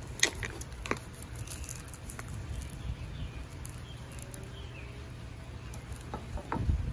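A few light clicks and crinkles from cellophane-wrapped lollipops being handled, over a low steady hum, with more clicks and a thump near the end.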